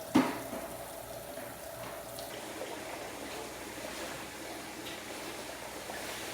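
Kitchen tap running steadily into a sink, with one sharp knock just after the start.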